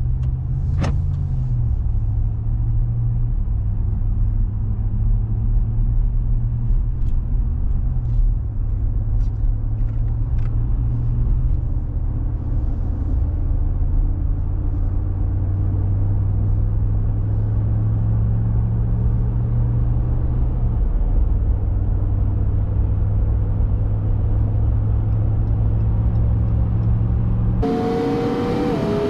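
Car engine and tyre noise heard from inside the cabin while driving at highway speed: a steady low drone whose pitch steps a few times. Near the end the sound changes abruptly and a higher whine joins the drone.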